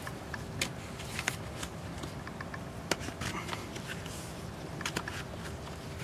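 Wiggle wire being pushed into an aluminium lock channel over greenhouse plastic film: scattered sharp metal clicks and light crinkling, about eight clicks spread irregularly, the sharpest about three seconds in.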